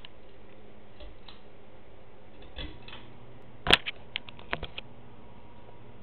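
Harbor Breeze Caribbean 52-inch ceiling fan being switched on: one sharp click from its pull-chain switch, then a quick run of lighter clicks, over the steady low hum of the fan motor.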